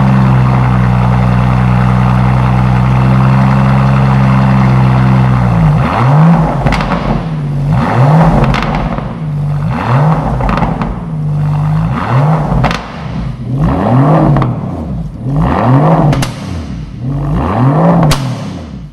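Rolls-Royce Phantom's twin-turbo V12 idling steadily, then blipped in a quick series of about ten free revs, each rising and falling back, with a few sharp cracks between revs.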